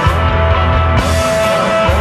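Instrumental desert rock played live by a guitar, bass and drums trio: sustained electric guitar over a low, heavy bass line and drums, with a cymbal crash about halfway through.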